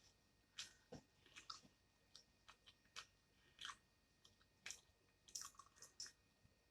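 Faint, irregular crunching and crackling of crispy fried food being bitten and chewed close to the microphone, about a dozen short crunches.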